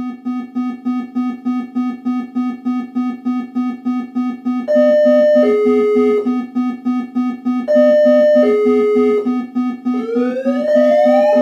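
Synthesized electronic warning alarm: a low tone pulsing rapidly, several times a second, joined about five seconds in by a repeating two-note high-low tone, and near the end by repeated rising sweeps.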